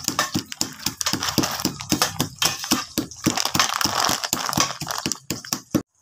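Plastic pestle crushing roasted coffee beans in a plastic mortar: a fast, irregular crackle of beans cracking and rattling against the bowl, cutting off suddenly near the end.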